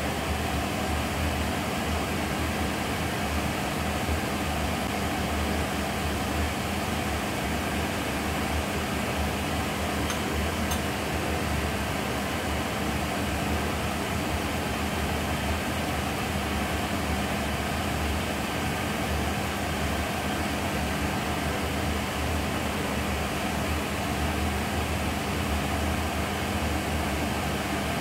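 A steady mechanical hum with an even hiss, like a fan running, unchanged throughout.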